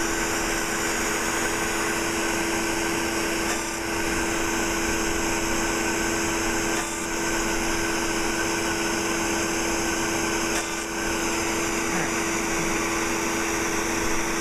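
Steady machine hum with a constant mid-pitched tone from fractional skin-resurfacing laser equipment running during treatment. The level dips briefly three times, about every three to four seconds.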